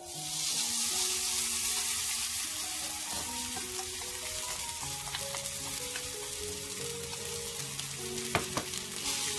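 Shredded carrot sizzling as it hits hot oil in a nonstick frying pan and is spread out, a steady frying hiss. A couple of sharp taps near the end.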